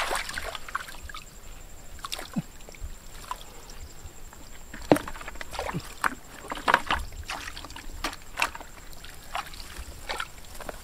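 Muddy water in a shallow pit sloshing and splashing as hands and a plastic bucket scoop through it. It comes in irregular splashes, with a sharp one about five seconds in and several more soon after.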